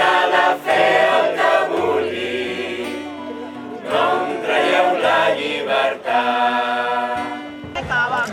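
A choir singing in several parts, held notes in short phrases over a lower line that moves from note to note.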